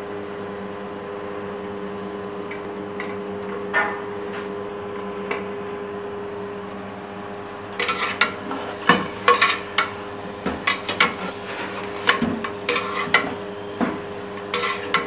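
Metal ladle and mutton pieces knocking and clattering against a large metal cooking pot as the meat is put in and stirred, over a steady hum. The knocks are sparse at first, then come thick and fast from about halfway in.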